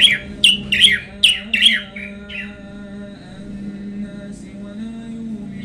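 A caged songbird gives a quick series of about five sharp, downward-sweeping calls in the first two seconds, then a weaker one, over steady background tones.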